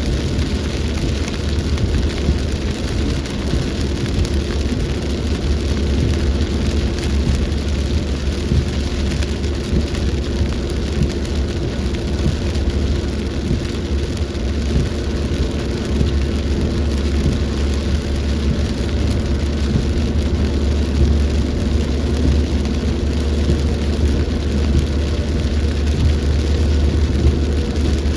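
Rain pouring steadily in a storm, with a constant low rumble underneath.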